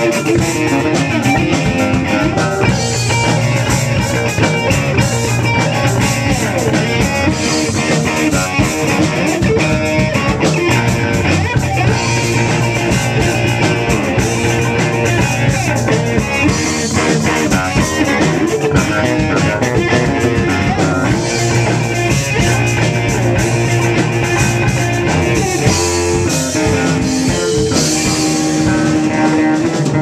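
Rock band playing live: electric guitar and electric bass over a drum kit, loud and unbroken.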